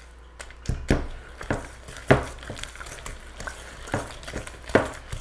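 Danish dough whisk stirring an egg into creamed butter and sugar in a glass mixing bowl, its wire loops knocking against the glass in irregular taps, with a few louder knocks.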